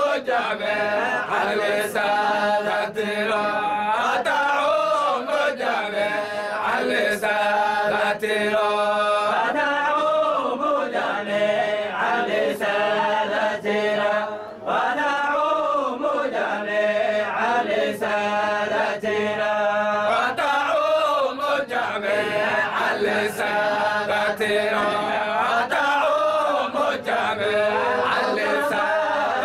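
A group of men chanting a Sufi dhikr of the Zayla'iyya order together, a continuous melodic devotional chant with a short break about halfway through.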